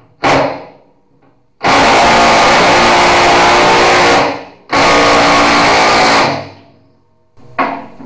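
Cordless half-inch impact wrench hammering nuts onto the bolts of a skid steer bucket's cutting edge: a short burst, then two long runs of about two and a half seconds and a second and a half. The hammering comes as the locking nuts are run down tight.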